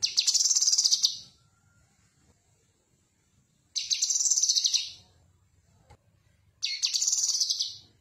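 Caged cucak kinoi, a leafbird, singing three short bursts of rapid high-pitched trilled notes, each about a second long and a few seconds apart.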